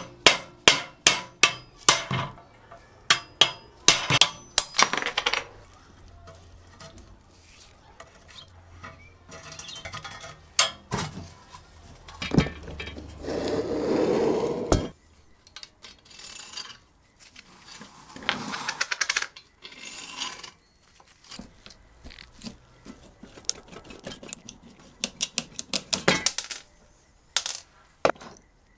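Steel hand tools tapping, clinking and knocking against the rusty steel frame, handlebar and wheel parts of a vintage tricycle being taken apart, in quick runs of sharp metallic knocks. A longer noisy stretch comes about halfway through.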